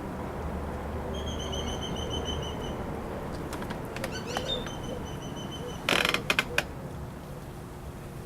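A bird calling: a rapid trill of about ten short, high, evenly spaced notes, then a few scattered chirps. About six seconds in comes a brief loud burst of clicks and rattling, over a steady low hum.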